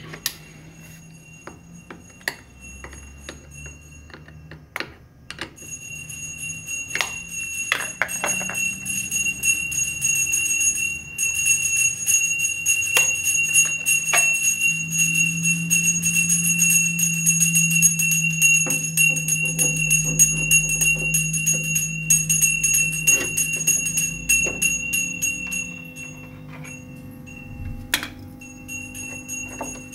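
A steady high-pitched electronic tone starts a few seconds in, holds for about twenty seconds and then stops, over scattered clicks and handling knocks.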